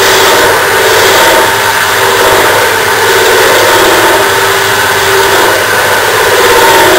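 JET benchtop wood lathe spinning a small spindle blank as a turning tool cuts it: a steady machine noise with a wavering hum that rises and falls as the tool works the wood.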